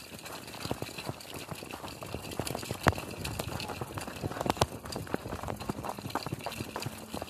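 Footsteps crunching on a snowy gravel track at a steady walking rhythm, over a faint hiss, with a few sharper crunches partway through.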